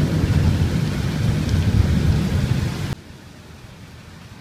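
Thunder rumbling over rain for about three seconds, then cutting off suddenly, leaving a steady hiss of rain.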